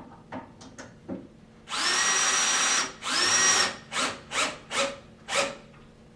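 Power drill driving a bolt into an aluminum chaise lounge frame: two runs of about a second each, then four short bursts as the bolt is snugged down until the rail sits tight against the frame. A few light clicks come before it.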